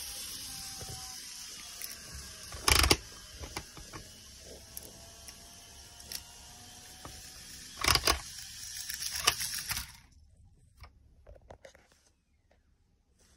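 Eight-car 225-100 series model train running on the track: a steady hiss of wheels with a faint motor whine and two loud clatters, about 3 and 8 seconds in. The running sound cuts off about 10 seconds in, leaving a few faint clicks.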